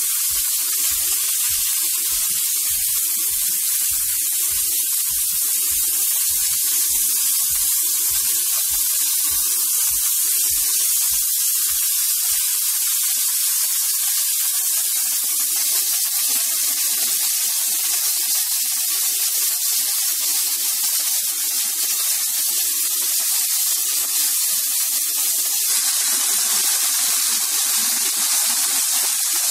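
Beef steak slices frying in their sauce in a pan: a steady sizzle.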